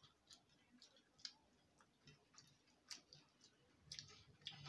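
Faint, irregular clicks and small taps of eating by hand from a steel plate: fingers gathering food against the metal and mouth sounds, a little busier near the end.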